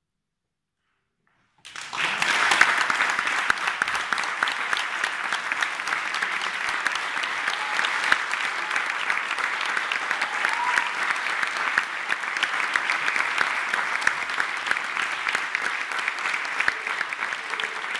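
Audience applause breaks out suddenly after a second or two of dead silence and keeps going at a steady level as dense, even clapping.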